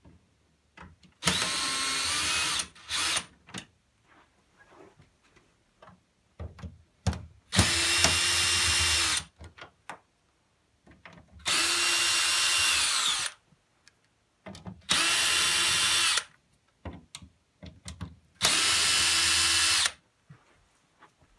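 A power drill-driver backing screws out of a TV's back panel: five short runs of its motor, each about one and a half seconds, with small clicks and handling knocks between them.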